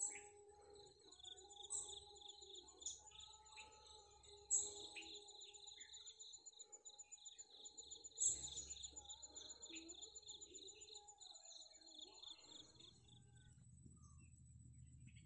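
Faint rural morning ambience: a steady high, pulsing insect trill with a chorus of other insects and bird calls, and a few short louder calls about 2, 4½ and 8 seconds in. A low rumble comes in near the end.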